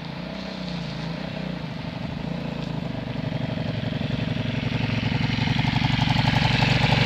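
Aprilia SXV 550's V-twin engine with its stock exhaust running at a steady low speed, growing steadily louder.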